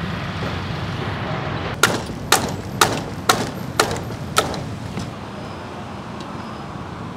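Six sharp knocks, evenly spaced about half a second apart, over a steady rumble of street traffic.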